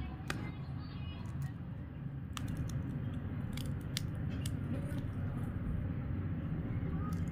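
Scattered small clicks and scratches of a string-wrapped round firecracker being turned and handled in the fingers, over a steady low background rumble.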